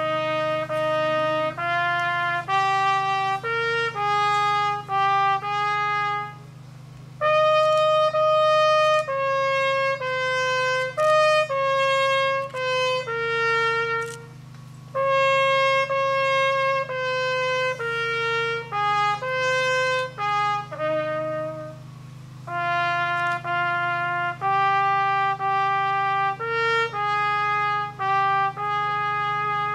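Solo trumpet playing a slow melody of held notes in four phrases, with short breaks between the phrases, over a steady low hum.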